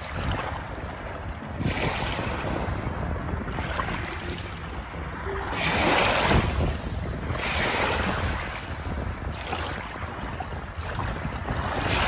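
Small waves washing up and drawing back over a shallow pebble shore, the hiss swelling in a surge every two seconds or so, the strongest about six seconds in. A low rumble of wind on the microphone runs underneath.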